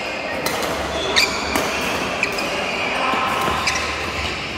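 Badminton being played in a large indoor hall: several sharp racket hits on the shuttlecock and short squeaks of shoes on the court floor, echoing in the hall.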